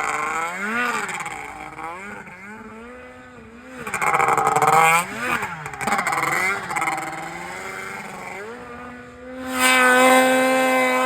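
Polaris RMK 700 snowmobile's two-stroke engine revving, its pitch swinging up and down again and again with the throttle. It gets louder about four seconds in, and near the end it holds a steady high rev at full volume.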